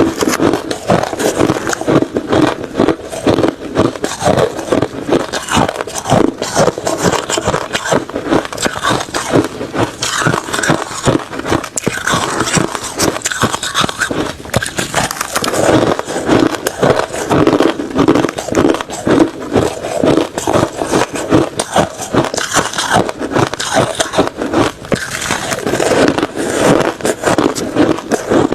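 Refrozen crushed ice and shaved ice being chewed: a dense, unbroken run of crunches and crackles.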